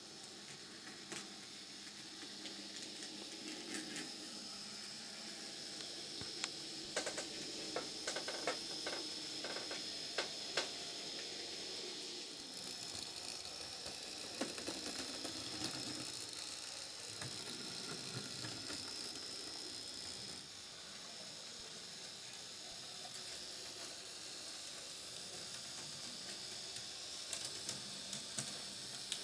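Small electric motor of an H0/00-scale model tram running, a steady high whir, with the wheels clicking now and then over the track and pointwork. The clicks come thickest a few seconds in.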